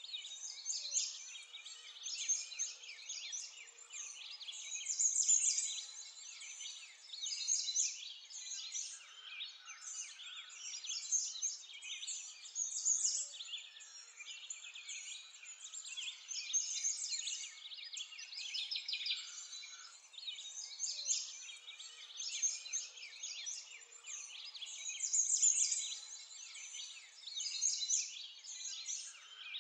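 Dense bird chorus: many small birds chirping and twittering without a break, swelling and fading every few seconds.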